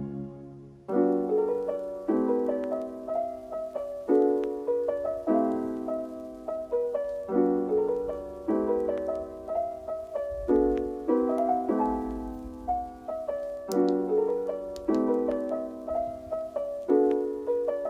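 Background piano music: soft chords and melody notes struck about once a second, picking up again after a brief pause just under a second in.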